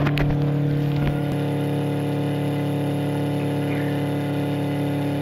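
Flojet 12-volt diaphragm water pump running with a steady hum as it pressurizes the system close to its 40 PSI shut-off, not yet cutting out.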